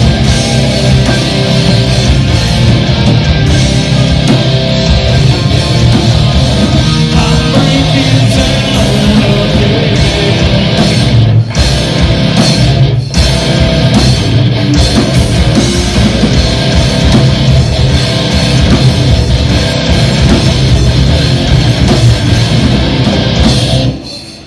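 Live heavy rock band playing an instrumental passage: distorted electric guitars, bass guitar and drum kit, with two brief breaks about eleven and thirteen seconds in. The music fades out quickly just before the end.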